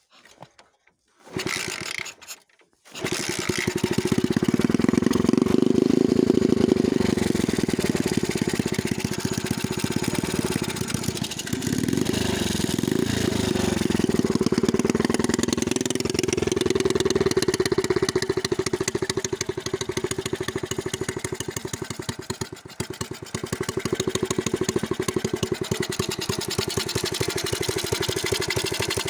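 Delta moped engine, a small horizontal single-cylinder four-stroke, being kick-started: it fires briefly about a second in, then catches about three seconds in and keeps running, revving up and down a little around the middle.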